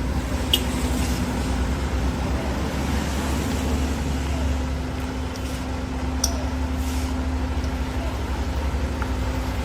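Heavy truck's diesel engine running steadily under load, labouring up a steep grade, with a few sharp clicks.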